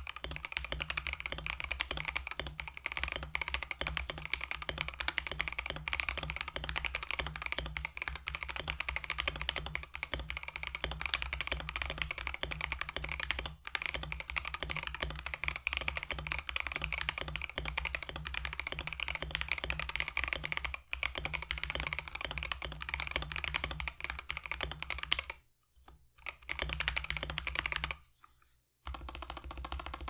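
Continuous typing on a mechanical keyboard fitted with Gateron CJ linear switches: a dense, fast stream of keystrokes, a little on the clackier side. The typing breaks off twice for about a second near the end.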